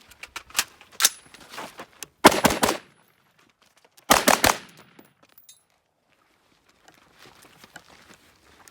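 AR-15-pattern rifle fired in fast strings: two single shots in the first second or so, then a quick burst of several shots a little past two seconds and another quick burst a little past four seconds, the loudest sounds here.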